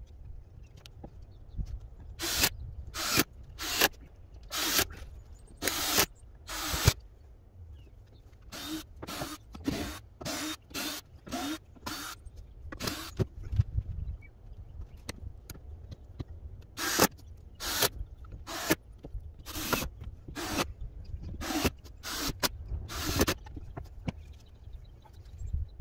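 Nails being driven through siding panels into the shed's wooden frame: runs of sharp strikes, about one or two a second, in three bursts with short pauses between them.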